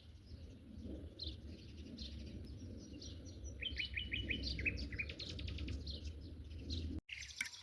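Small birds chirping and tweeting, many short calls with a quick run of repeated chirps about halfway through, over a steady low rumble. After an abrupt cut near the end, sharp clinks begin.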